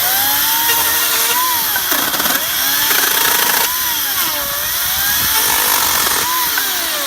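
Echo 58-volt brushless battery chainsaw with a 16-inch bar running and cutting, loud and steady. Its whine dips and climbs back in pitch several times as the chain loads up and frees.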